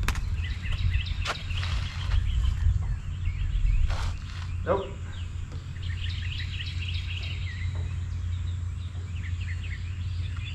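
Birds chirping over a steady low rumble, with a couple of sharp knocks, one about four seconds in.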